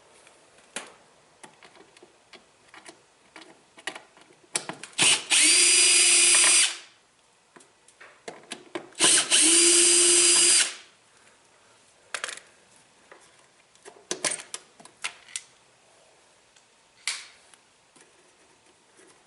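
Power drill run in two bursts of about a second and a half each, with a steady pitch, and light clicks and rattles of handled parts between them.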